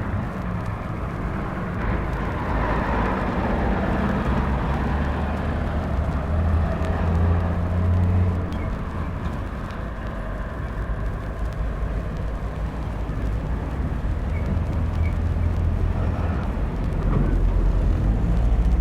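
An engine running with a continuous low hum, its pitch shifting a few times and growing deeper and louder near the end.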